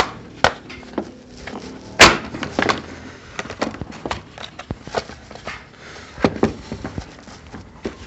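Irregular sharp clicks and knocks of hard plastic and metal parts as a replacement Briggs and Stratton recoil starter is handled and lined up in its housing, the loudest knock about two seconds in.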